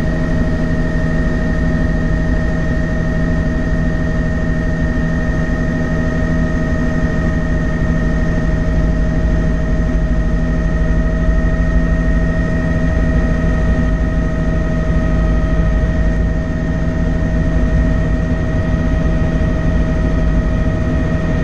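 Helicopter in steady flight: constant engine and rotor noise, a low rumble under a high, unchanging whine.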